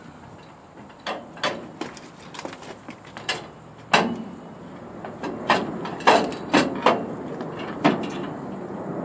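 Irregular clanks and knocks of heavy steel pieces being set and shifted, about ten in all, the loudest about four and six seconds in.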